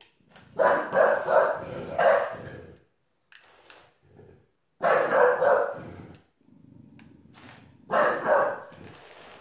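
A bulldog barking in three bouts of short, sharp barks, with pauses between, at a robot it is afraid of.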